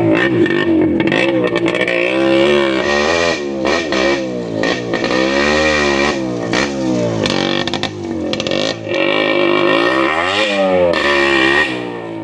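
Yamaha RX100's two-stroke single-cylinder engine running with its muffler removed, loud and open, revving up and down over and over.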